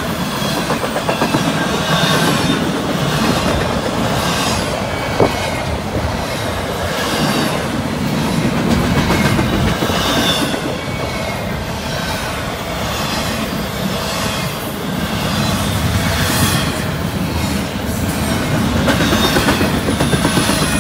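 Double-stack intermodal freight train passing close by. Its steel wheels roll and clatter over the rail in a repeating rhythm as each car goes past, under a steady rumble, with one sharp click about five seconds in.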